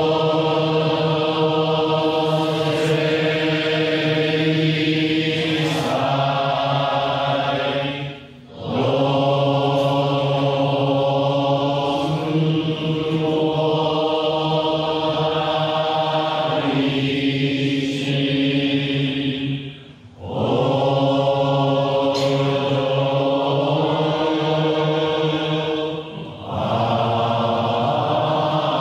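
Over a hundred voices chanting Jodo Shinshu Buddhist liturgy in unison, in long, drawn-out tones. The chant breaks off briefly for breath about 8 and 20 seconds in, with a shorter dip near the end.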